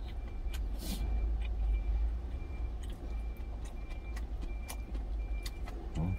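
Steady low rumble of an idling truck engine heard inside the cab, with scattered sharp clicks of metal chopsticks against a stainless steel lunch container. A faint short high beep repeats about every two-thirds of a second.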